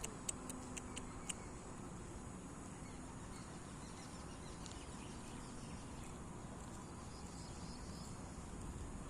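Steady rural background noise with a few sharp clicks in the first second or so and faint, brief high chirps a few seconds in.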